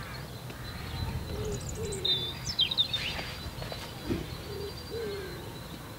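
Birds calling: a pigeon cooing in low, short notes repeated several times, with a few high chirps from a small bird about two to three seconds in.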